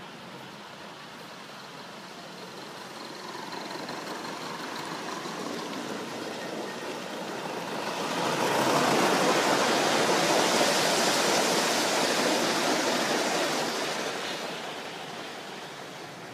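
Gauge one model train running past on the track: a rolling rumble of wheels on rails that swells as it approaches, is loudest for several seconds as the coaches pass close by, then fades away.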